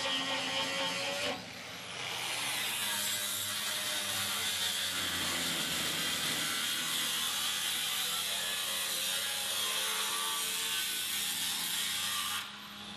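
Power tool cutting through the car's old sheet-steel floor pan. It runs with a steady whine, stops about a second in, starts again a moment later as a rough, grinding-sawing noise, and cuts off near the end.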